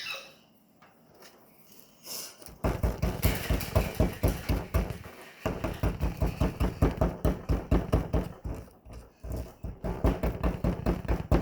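Rapid knocking of a digging tool against a hard plaster gem-dig block, about four knocks a second. The knocking starts a couple of seconds in and pauses briefly twice.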